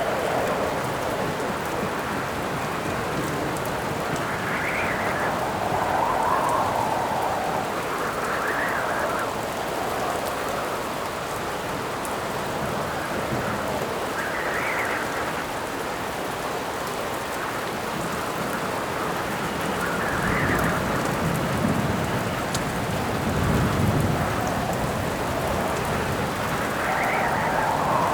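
Steady heavy rain with wind howling in gusts that swell and fade every few seconds. Low rolls of thunder rumble through the last third.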